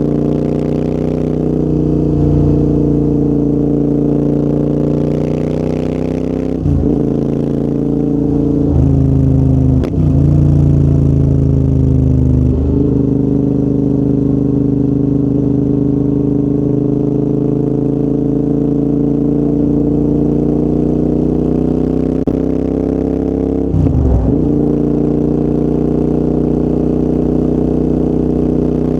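Royal Enfield Interceptor 650's parallel-twin engine through a full TEC exhaust system, running under way. The note holds steady for long stretches and briefly dips and picks up again several times, about a quarter of the way in, around a third of the way in, and near the end, as at gear changes.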